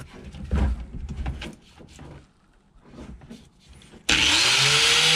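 Handheld angle grinder being picked up and handled against the plastic kayak hull, with a few knocks and clatters, then switched on about four seconds in: a sudden loud hiss with a motor whine rising in pitch as it spins up.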